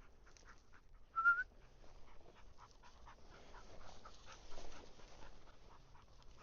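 Bird dog panting close by, with light rustling and steps through brush. About a second in, one short, slightly rising whistle stands out as the loudest sound.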